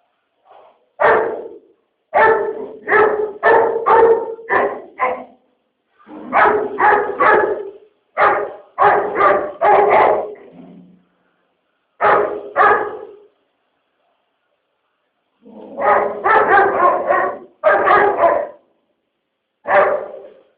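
A dog barking repeatedly in bursts of several quick barks, with pauses of a second or two between bursts.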